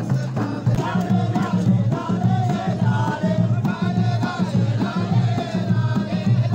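A group of men chanting a traditional Omani folk song in unison, with a steady pulsing beat.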